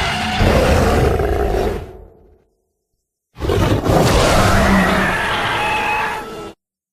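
Two primitive ape vocalization sound effects, rough and roaring, with a gap of dead silence between them. The first lasts about two seconds and fades away. The second starts about three and a half seconds in, runs about three seconds, and cuts off suddenly.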